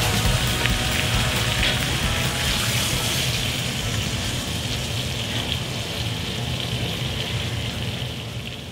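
Steak frying in butter in a hot pan: a steady sizzle with small crackles and spits, fading out at the end.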